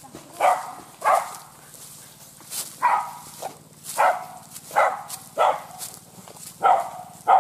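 Hunting dogs barking repeatedly, about nine short barks in quick succession.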